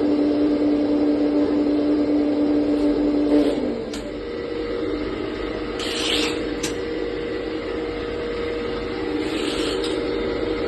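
Radio-controlled hydraulic excavator model running: a steady motor whine that drops in pitch and level about three and a half seconds in, with a few sharp clicks a little later.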